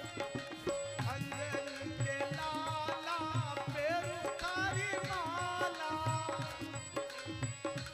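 Devotional bhajan music: a harmonium holding steady notes over a hand drum beating a regular rhythm, with a sliding, wavering melody line over them from about two to six seconds in.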